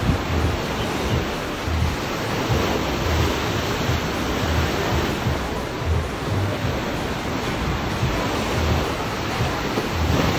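Steady rush of breaking water in an artificial surf wave pool: a machine-made wave breaking and churning into whitewater across the pool.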